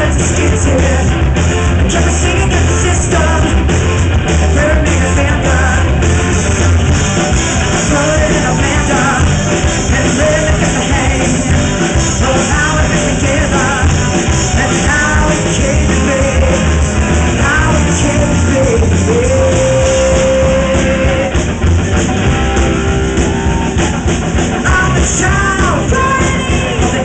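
Live rock music: a woman singing lead into a microphone over guitar and band backing, holding one long note about two-thirds of the way through.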